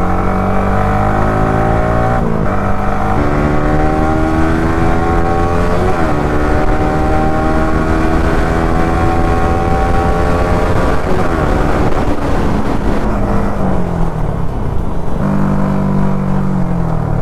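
Yamaha R15 V3's single-cylinder engine pulling through the gears at speed. The engine note climbs steadily, with brief dips at each gear change. It falls away near the end as the bike slows.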